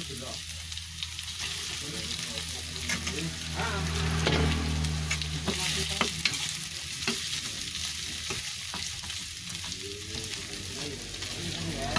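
Food sizzling in hot oil in a pan while it is stirred, with the spatula scraping and clicking against the pan now and then.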